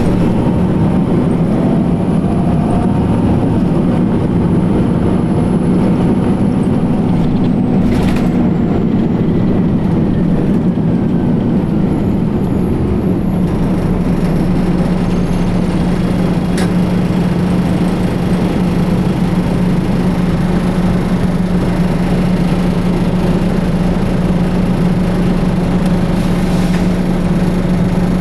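Detroit Diesel Series 50 EGR diesel engine of a 2004 New Flyer D60HF articulated bus running steadily, heard from on board, with a deep steady hum that evens out about halfway through. A couple of brief sharp knocks occur, about 8 and 16 seconds in.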